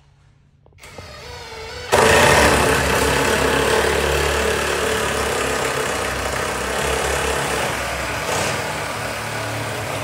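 An electric power tool, such as an angle grinder, spins up with a rising whine, then about two seconds in cuts into the steel with a loud, steady cutting noise that eases slightly toward the end.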